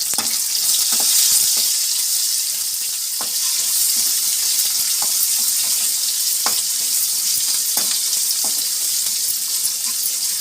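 Onion frying in hot oil in a kadai with mustard seeds, urad dal and garlic: a steady sizzle with scattered sharp ticks.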